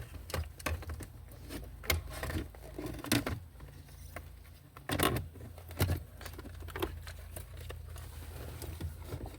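Plastic console parts (the ashtray and dash trim) being handled and pressed into place: irregular clicks and knocks of plastic on plastic, the loudest a few knocks about five to six seconds in.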